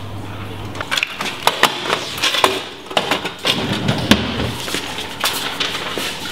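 A metal cash box being handled and put away: a run of sharp clicks and knocks with scraping, thickest between about one and four seconds in.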